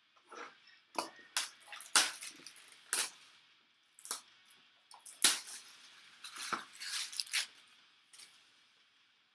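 Packaging of a sealed trading card box being handled and unwrapped: a string of irregular sharp crinkles, crackles and scrapes.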